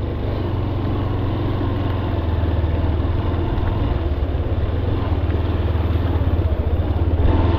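Honda Hornet 2.0 motorcycle's single-cylinder engine running steadily at low revs in first gear, with a constant low hum as the bike creeps along.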